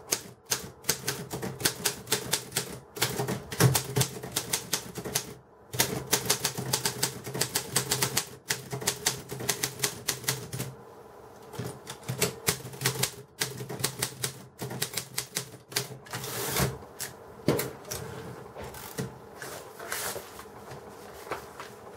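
Typing on a 1947 Rheinmetall KsT manual typewriter: rapid key strikes several a second, with a brief pause about five seconds in, then slower, more scattered strikes in the second half.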